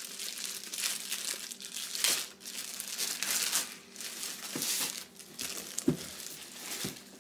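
Packaging crinkling and rustling in bursts as items are handled and unwrapped, with a few soft thumps in the second half.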